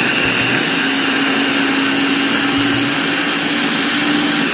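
Electric food chopper running at a steady speed with a constant whine, grinding chillies, garlic, shallots and lemongrass into a spice paste.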